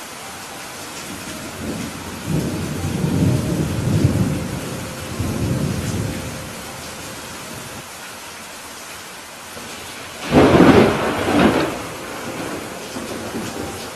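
Steady rain with thunder: a low rolling rumble swelling several times from about two to six seconds in, then a sudden sharp, loud thunderclap about ten seconds in that rumbles off over a second or two.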